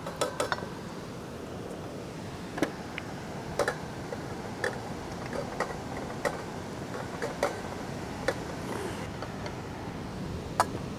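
Metal spoon clinking and scraping against a stainless steel pot as rice is tipped in and stirred through vegetables, short knocks about once a second at uneven intervals over a steady hiss.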